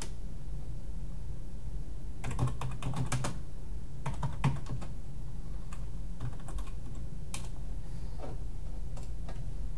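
Typing on a computer keyboard: short runs of keystrokes with pauses between them, over a steady low hum.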